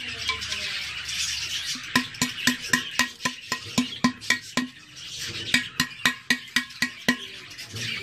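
A tool scraping and grinding at the edge of a hole in a terracotta clay pot. Background music with a fast, steady clicking beat plays over it. The beat drops out for the first couple of seconds and again briefly around five seconds in, leaving the scraping plainest then.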